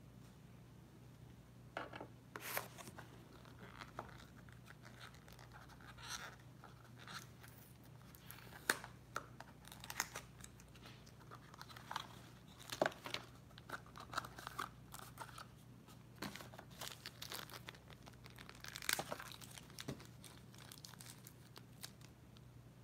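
Small blind-box packaging being torn open and crinkled by hand: irregular tearing and rustling with sharp crackles, busiest in the middle.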